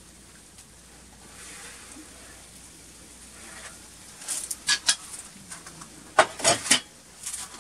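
A metal roasting tray of potatoes is pulled out over the oven's wire rack with a few sharp clanks about four seconds in. It then clatters against metal as it is set down on a wood stove's top, the loudest knocks near the end.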